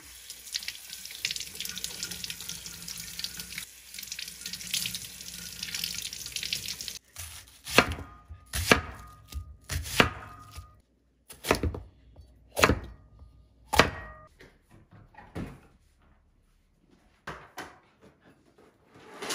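Tap water running into a stainless steel sink while a red bell pepper is rinsed under it, for about the first seven seconds. Then a kitchen knife slices an onion on a wooden cutting board, giving sharp knocks about once a second that tail off near the end.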